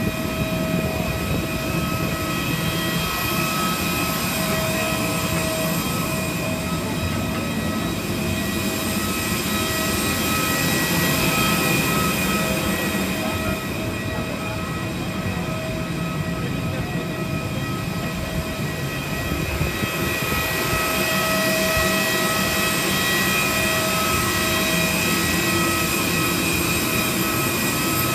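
Parked airliner running on the apron: a steady, loud machine drone with a high whine of several held tones over it.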